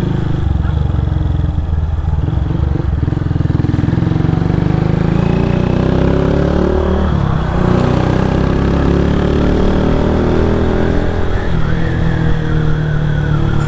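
Motorcycle engine with a modified aftermarket exhaust, heard from the saddle while riding. Its pitch climbs under acceleration, drops at a gear change about seven seconds in, then climbs again.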